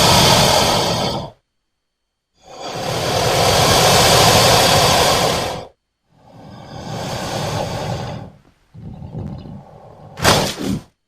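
A string of separate cartoon whoosh sound effects: rushing swells lasting a few seconds each, with silent gaps between them, the last cut short by a quick, sharp sweep near the end.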